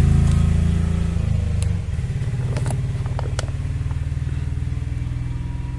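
A motor engine running steadily with a low hum; it drops in loudness about two seconds in and keeps running. A few short clicks sound over it.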